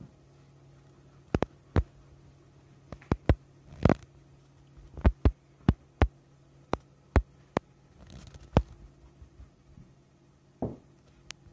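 A string of sharp, short knocks and taps at irregular intervals, well over a dozen, over a low steady hum.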